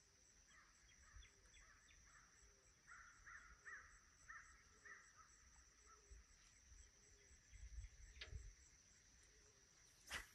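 Near silence outdoors: a faint steady high insect drone, a distant bird calling several times in a row, and a sharp click near the end as a rod is swung into a cast.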